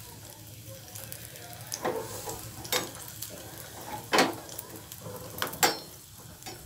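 Raisins frying lightly in ghee in a small stainless-steel pan, with a soft, steady sizzle as they puff up. A steel spoon stirring them clinks and scrapes against the pan about six times.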